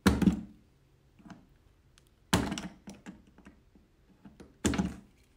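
A blade cutting out a piece of the grow-out pen's wall: three sharp, loud knocks about two and a half seconds apart, with faint small clicks between them.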